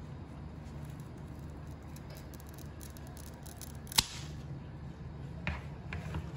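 Scissors snipping through a Monstera stem: faint small clicks, then one sharp snip about four seconds in, followed by two softer clicks near the end.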